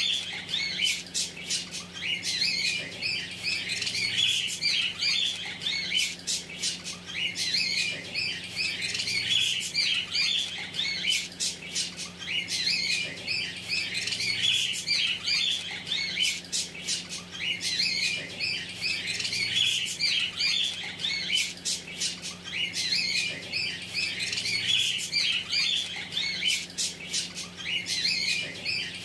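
Budgerigars chattering, a continuous busy run of short chirps, squawks and clicks.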